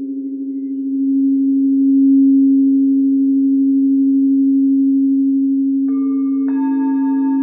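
Singing bowls ringing: one steady low tone with a slow wavering pulse swells after about a second, then two more bowls sound near the end, adding higher ringing tones over it.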